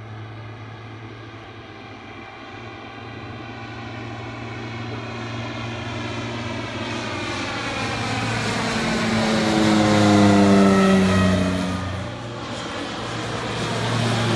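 Propeller biplane's engine growing steadily louder as it approaches, its pitch dropping as it passes. It dips about twelve seconds in, then builds again near the end as the plane comes round.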